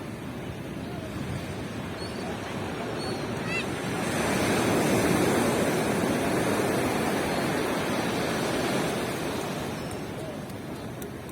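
Ocean surf on a beach: a wave swells up about four seconds in, breaks and washes in, then fades away over several seconds.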